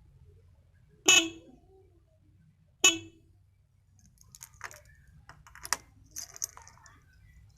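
Motorcycle electric horn sounding two short beeps, the first about a second in and a little longer, the second about two seconds later, as the newly wired horn is tested. Light clicks and rattles of handling follow.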